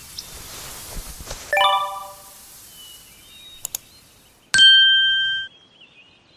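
Chime-like sound effects: a ringing ding about a second and a half in that fades quickly, two short clicks, then a loud steady beep that holds about a second and cuts off suddenly.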